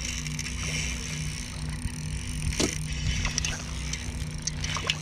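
Spinning reel being cranked to bring in a hooked wiper (hybrid striped bass), with a few sharp clicks, over a steady low hum from the boat.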